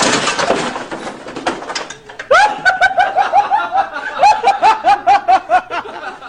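A person laughing in a rapid run of short, high-pitched laughs, about four a second, that starts about two seconds in after a breathy, hissing stretch.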